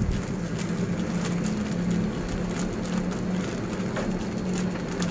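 Plastic bag rustling and crinkling as it is twisted and tied off with a strip of inner-tube rubber, over a steady low engine hum.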